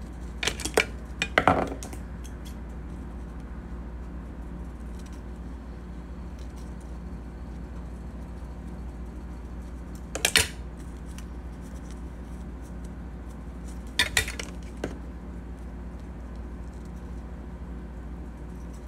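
Small scissors snipping through a dry brown wrap, giving a few sharp clicks: a cluster near the start and single louder snips about ten and fourteen seconds in. A steady low hum runs underneath.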